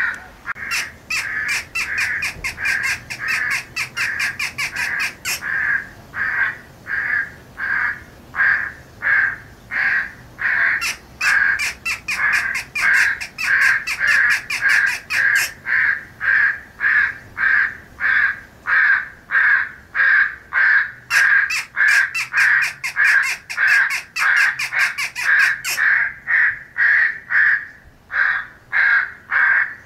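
Crows cawing in a rapid, unbroken series of short caws, about two a second: a crow 'morning call' feeding sequence made for playback through an electronic predator caller to draw in corvids. In three stretches of about four seconds each the caws come out harsher and hissier.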